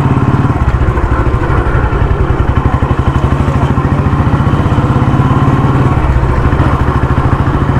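Royal Enfield Thunderbird 350's single-cylinder four-stroke engine running while riding at low speed, a steady, even beat of exhaust pulses.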